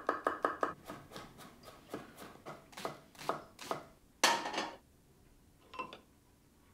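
Kitchen knife slicing garlic cloves on a wooden cutting board: a quick run of about seven cuts a second, then slower, irregular cuts. About four seconds in there is a louder scraping sound lasting half a second, and near six seconds a short knock.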